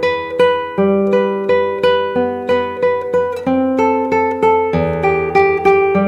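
Nylon-string classical guitar played in a slow tremolo exercise: a thumb bass note followed by repeated treble notes plucked in the middle-index-ring (m-i-a) finger order, an even rhythm of about three plucks a second, with the bass note changing every second or so.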